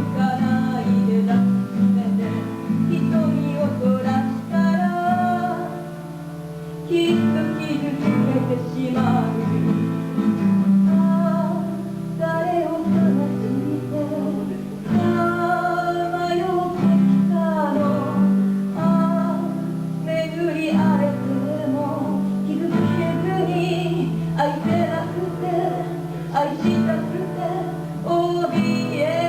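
A woman singing a slow song to strummed acoustic guitar accompaniment.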